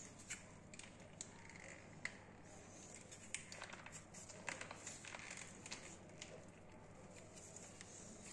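Faint crinkling and scattered soft clicks of a plastic sauce pouch being squeezed, as mayonnaise is piped out onto bread slices.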